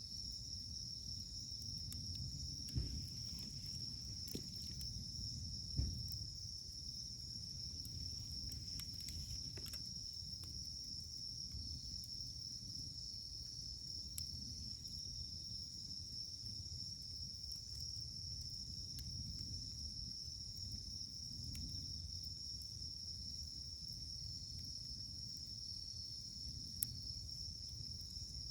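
Wood campfire burning with a low rumble and scattered crackles. There are a few sharp pops, about three seconds in, about six seconds in and near the end. A steady high-pitched drone runs underneath.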